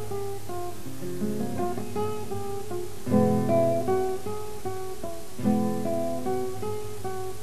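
Acoustic guitar music: a run of plucked notes, with louder, fuller chords about three seconds in and again about five and a half seconds in.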